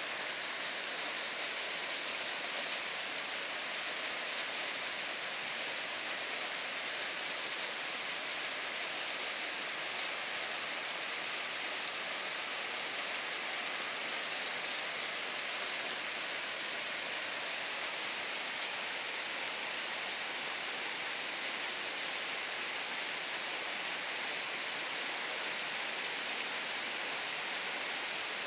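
Heavy rain falling on forest foliage: a steady, even hiss.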